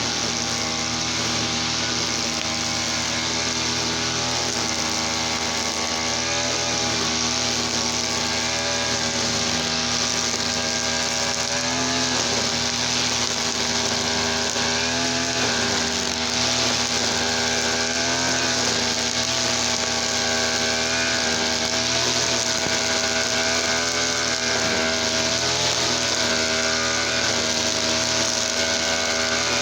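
Easyman TL33 brush cutter's two-stroke engine, run on mixed petrol and oil, running steadily with its pitch wavering slightly now and then.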